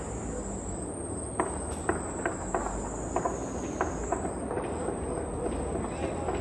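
Celebratory gunfire across a city at night: about ten single shots, cracking irregularly from about a second and a half in, over a steady wavering high-pitched whine and low background rumble.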